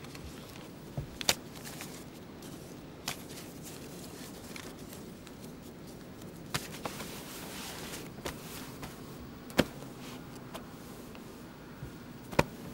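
Sparse sharp clicks and knocks over a low steady hum, with a brief rustle of clothing about seven seconds in: a man moving about a room and taking off his suit jacket. The loudest knocks come about a second in, near ten seconds in and just before the end.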